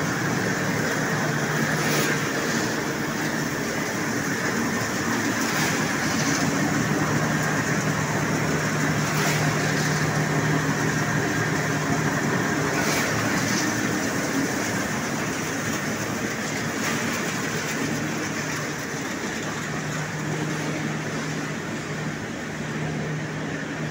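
Impact pulverizer running steadily while grinding turmeric into powder: a dense, even whirring noise with a low hum and a faint tick about every three and a half seconds.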